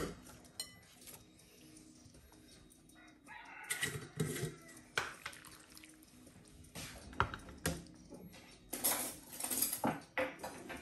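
Stainless-steel ladle clinking against ceramic bowls as pork ribs and broth are served, with chickens calling in the background.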